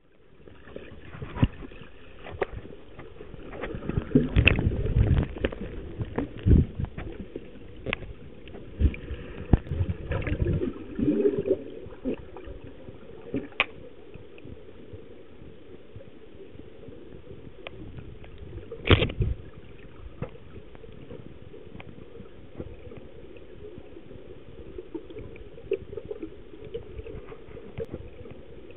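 Muffled underwater sound picked up by a camera in an underwater housing: a steady low wash of water with irregular knocks and bumps against the housing, busiest in the first half, and one sharp knock about two-thirds of the way through.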